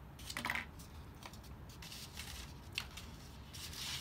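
Faint handling of a small paper pattern piece being folded into a dart: a few light crinkles and taps, the loudest about half a second in, with soft rustling near the end.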